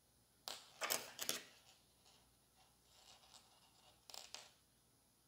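Soft clicks and rustles of handling, then a short burst of scissors snipping through cotton crochet twine about four seconds in.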